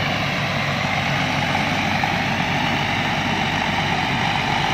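Rice combine harvester's diesel engine and machinery running steadily and loudly, with no change in pace.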